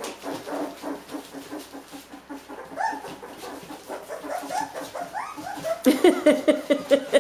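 Dalmatian puppies, about three weeks old, whimpering and squealing as they jostle to nurse from their standing mother, with a few rising squeals and a louder fast run of yelps near the end.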